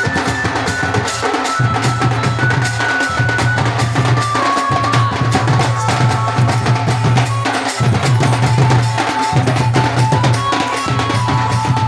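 Several shoulder-slung barrel drums beaten together by hand in a fast, dense processional rhythm. Over the drums runs a high melody line of held notes that step between a few pitches.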